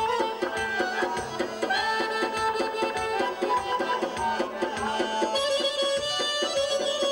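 Azerbaijani folk dance music on two garmons (Azerbaijani button accordions): held reedy notes and a running melody over a steady hand-drum beat. The melody moves to a new held note about five seconds in.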